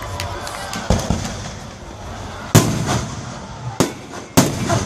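Aerial fireworks shells bursting in a series of sharp bangs, about four main reports, the loudest about halfway through, with smaller crackles between them.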